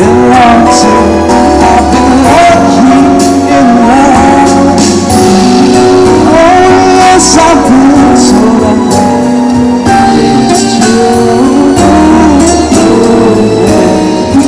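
A male singer singing a slow pop ballad live into a microphone over backing music, with sustained, wavering notes that glide between pitches.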